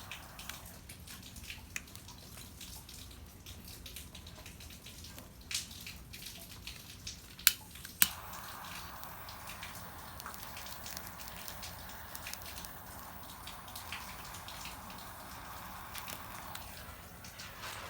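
Rainwater dripping and pattering in many small irregular drops. Two sharp clicks come about seven and a half and eight seconds in, and a steady hiss runs after them until shortly before the end.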